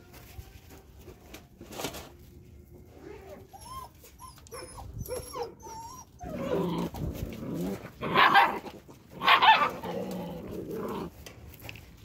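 Puppies whining in short cries that rise and fall in pitch, then louder, harsher dog sounds with two loud barks in the second half.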